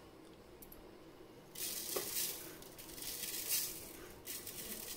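Granulated sugar tipped from a spoon into a plastic blender jar onto cut strawberries: a soft hissing patter in a few pours, starting about a second and a half in and lasting a couple of seconds.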